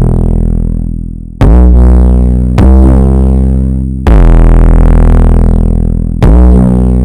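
Loud 808 bass: a deep synthesized booming note struck four times at uneven intervals, each one fading away until the next hit.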